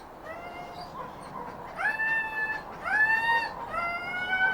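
A dog whining over and over: about five drawn-out, high whines, each rising at the start and then held, the longest ones near the middle.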